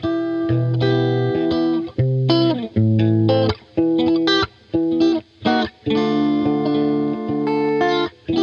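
Background music led by guitar, with pitched notes and several sudden stops and gaps.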